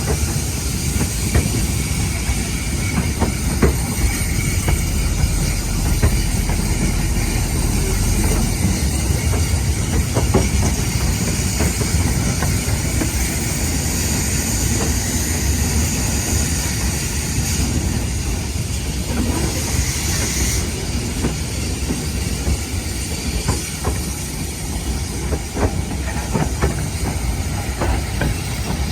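Steam-hauled train rolling along standard-gauge track, heard from the open wagon: a steady rumble of wheels with scattered clicks over the rail joints and a hiss of steam.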